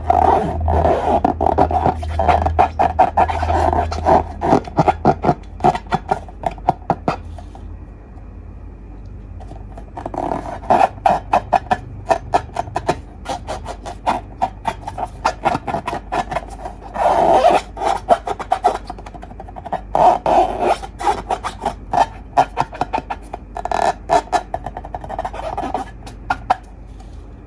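Slime being squished and kneaded by hand, giving dense runs of wet clicks and small pops. There are brief quieter lulls in the squishing.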